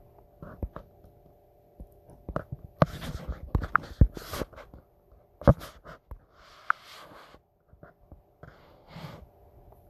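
Irregular clicks, taps and knocks, with a few short rustles, over a faint steady hum.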